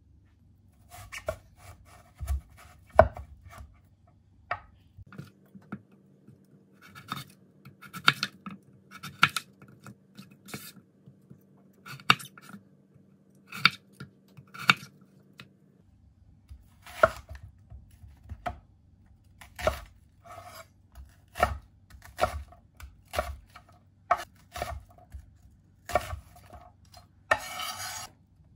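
Chef's knife cutting radish into thick slices and then chopping onion on an end-grain wooden cutting board: single knife strikes on the board, roughly one a second.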